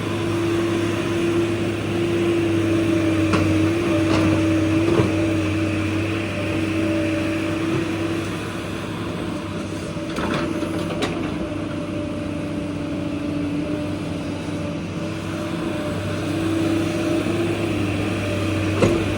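JCB excavator's diesel engine running steadily with a constant hum, with a few short knocks and scrapes now and then as it digs.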